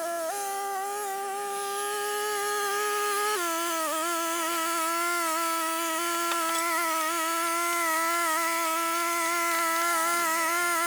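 Background music: a single held, slightly wavering melodic tone that shifts pitch a little twice.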